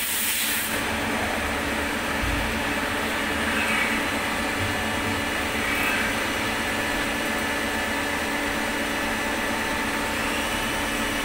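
Steady hum and hiss of a powered-up CNC lathe standing with its spindle stopped.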